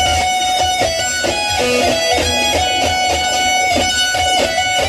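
Electric guitar playing a continuous riff, its notes changing every few tenths of a second over a steady low pulse.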